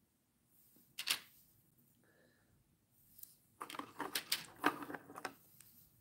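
Grey plastic HO scale window castings on their sprues clicking and clattering as they are handled and set down: one sharp click about a second in, then a run of light clicks and rattles for a couple of seconds past the middle.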